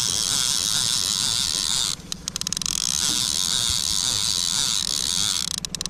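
Fishing reel cranked steadily to winch in a hooked fish, winding in line with a whir that repeats about twice a second. A steady hiss runs under it and cuts out briefly twice, with a few clicks.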